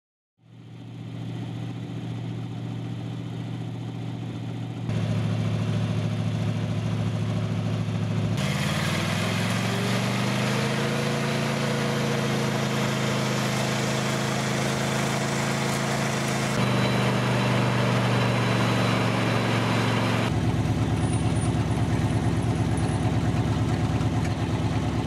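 Glider launch winch's engine running steadily, then revving up about eight seconds in and held at a high, steady pitch as it drives the cable drum for a launch. The engine sound changes abruptly twice more, ending in a lower, pulsing running sound near the end.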